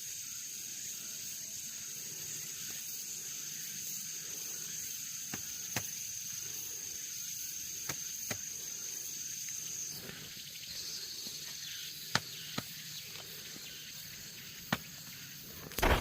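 Insects trilling, a steady high-pitched tone over a faint hiss that stops about ten seconds in. Scattered small sharp clicks run through it, and a louder crackle comes near the end.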